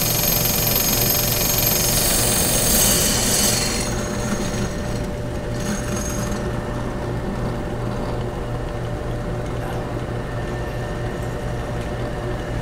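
Ryobi drill press running with a diamond bit grinding a hole through a cobalt blue glass bowl, water-cooled. A high gritty grinding is strongest for the first three or four seconds, then eases while the motor keeps up a steady hum.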